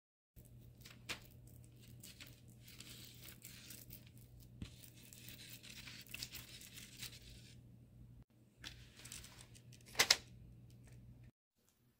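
Metal spoon scraping and spreading a raw ground-meat mixture over flatbread on parchment paper: a soft, rustling scrape with scattered small clicks, busiest in the middle, and a louder brief rustle about ten seconds in.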